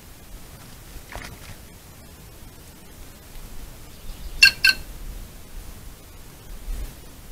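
White-naped jay giving two loud, short calls about four and a half seconds in, after a fainter call about a second in.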